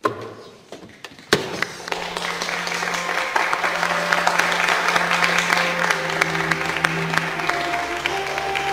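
Crowd clapping and cheering, building quickly after a sharp knock about a second in. A film score comes in underneath, first a held low note, then a melody from about six seconds in.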